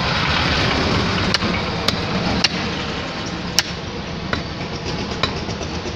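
Butcher's cleaver chopping beef on a wooden chopping block: about six sharp, separate knocks at an uneven pace, the loudest a little past the middle, over steady background noise.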